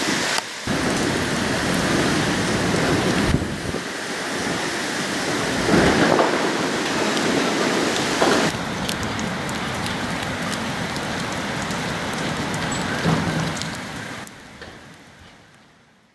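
Steady rain falling on a corrugated metal shed roof, fading out near the end.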